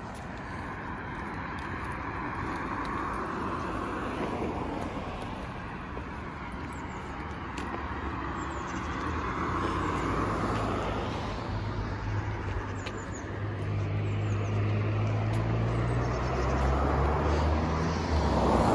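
Road traffic: cars passing on the road, tyre noise swelling and fading in several passes. A low engine hum builds up in the second half.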